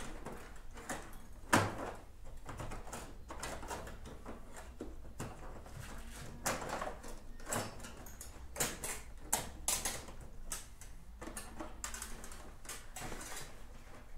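Irregular clicks, knocks and rustles of hands feeding wiring through a scooter's plastic under-seat bodywork, the loudest a sharp knock about a second and a half in.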